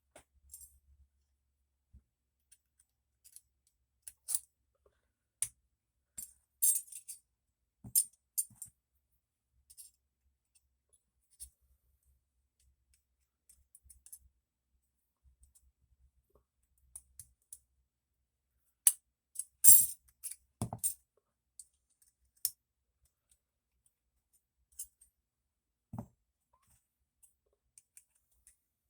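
Small metal parts of a folding electrician's knife clicking and clinking as they are fitted together by hand: scattered sharp clicks, with a louder cluster of clinks about two-thirds of the way through.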